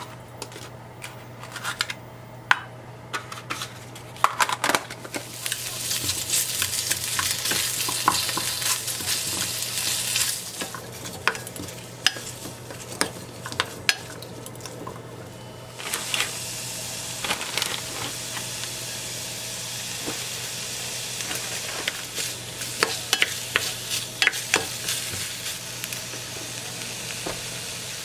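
Meat, daikon and carrot sizzling as they are stir-fried in a white pot, with a wooden spatula scraping and clicking against the pot. The sizzle builds a few seconds in, eases off briefly, then comes back steadier about sixteen seconds in.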